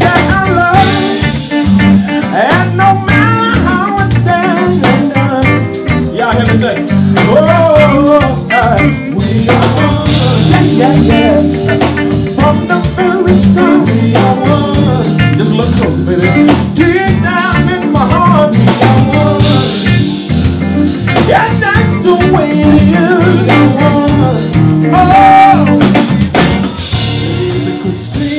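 Live band playing: electric guitar, drum kit and keyboard, with a singer on a microphone.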